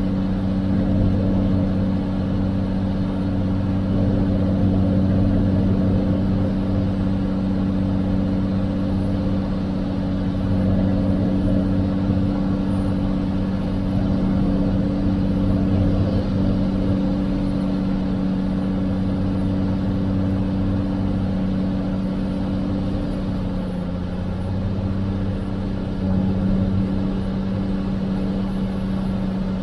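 Cirrus SR22's six-cylinder Continental engine and propeller droning steadily, heard inside the cabin on final approach. The engine note dips slightly a little after twenty seconds in, then steadies again.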